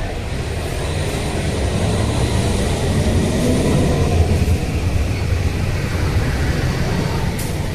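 Container freight train rolling past, a steady low rumble that swells a little midway.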